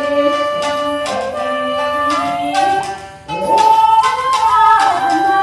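A 1.8-shaku shakuhachi playing a Japanese min'yo folk-song melody in held, stepped notes over a karaoke backing track, with a brief dip in the sound about three seconds in.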